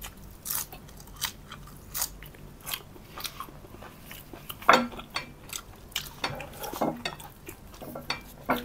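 Close-miked eating sounds: crisp crunches and chewing of crunchy food, coming irregularly every half second or so, the loudest about five seconds in.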